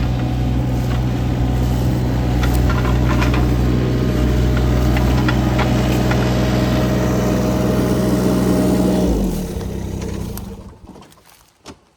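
A vehicle engine idling steadily, then switched off about nine seconds in, followed by a few faint knocks.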